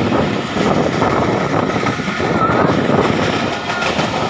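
Passenger train running along the track, a steady loud rumble of the coach and rails with wind buffeting the microphone.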